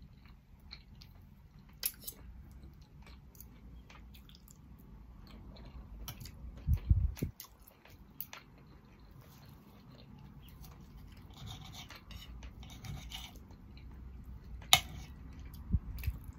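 Eating a roast dinner with a knife and fork: cutlery clinking and scraping on the plate as food is cut, with chewing. A louder low thump comes about seven seconds in.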